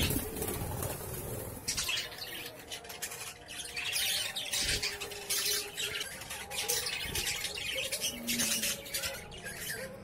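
Budgerigars squawking and chattering in harsh, scratchy calls, squabbling during a fight over the nest box. A sharp knock comes at the very start.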